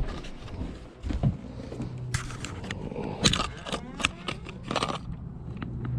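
Handling of a fishing lure and its packaging: a string of irregular clicks, taps and scrapes over a steady low hum.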